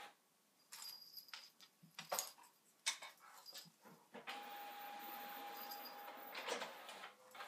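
Two house cats play-fighting, with short whiny meows and a long, steady cry lasting about two seconds a little past halfway.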